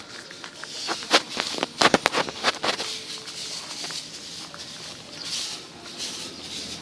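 Handling noise from a phone being swung about: a quick flurry of sharp clicks and knocks about one to three seconds in, over faint outdoor background.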